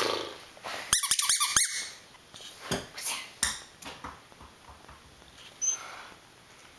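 A squeaky dog toy squeaking several times in quick succession about a second in, followed by a few soft knocks and rustles.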